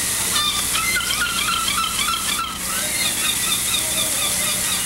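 Steady hiss of shoreline water, with a quick run of short bird calls, about four a second, in the first half.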